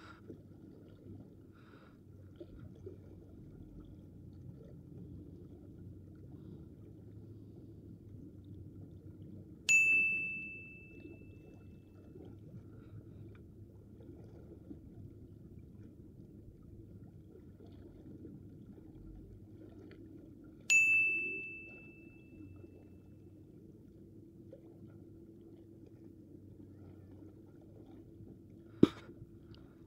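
A bright, clear bell-like ding, heard twice about eleven seconds apart; each has a sharp start and rings out over about a second and a half. A single sharp click comes near the end, over faint steady low background noise.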